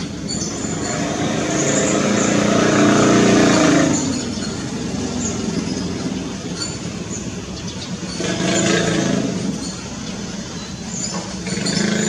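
Road traffic: vehicles passing, the rushing noise swelling and fading three times.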